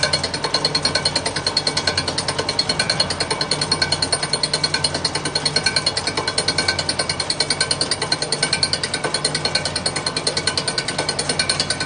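Grinding wheel of a jute cutting machine's knife-sharpening attachment rubbing against the blades of the spinning cutter, a steady rasping beat several times a second as each blade passes the wheel.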